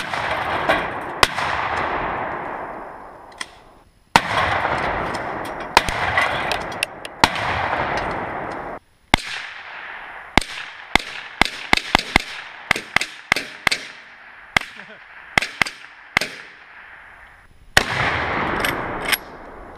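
Gunshots from long guns: single shots with long echoing tails, then a quick string of a dozen or so shots at about two or three a second, then a few more shots near the end.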